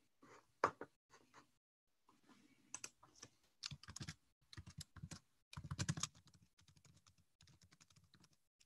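Faint typing on a computer keyboard, picked up by a video-call microphone: irregular runs of quick key clicks, busiest around the middle.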